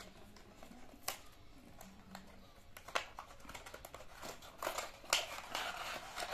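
Cardboard earphone box and its plastic tray being handled and opened: scattered crinkles and sharp clicks, busier and louder in the last couple of seconds as the earphones are drawn out.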